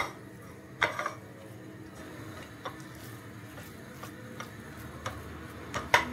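A handful of sharp clicks and knocks as a nonstick pan's rim and a silicone spatula tap against a glass plate, with soft scraping between them as the spatula spreads thick cornmeal porridge. The loudest knocks come at the start, about a second in, and near the end.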